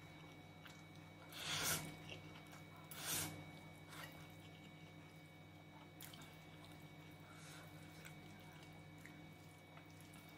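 Curry noodles slurped twice, about a second and a half in and again near three seconds, followed by soft chewing with a few faint clicks.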